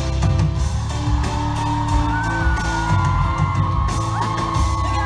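Live pop concert recording: music with a heavy, steady bass beat, with high whoops and screams from the audience held over it from about two seconds in.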